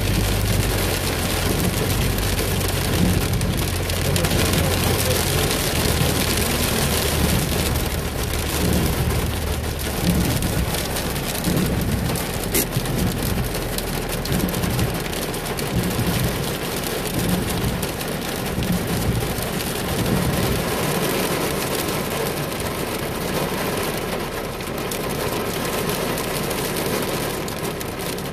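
Heavy rain pattering on a car's roof and windshield, heard from inside the cabin. A low rumble from the car under it dies away about ten seconds in.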